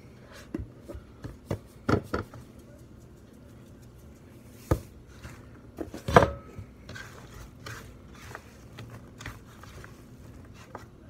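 Handling sounds while raw green banana slices are salted on a plastic cutting board: scattered light clicks and knocks from the salt canister and the slices, with a few sharper knocks about two, five and six seconds in. Near the end the slices rustle as they are tossed together by hand.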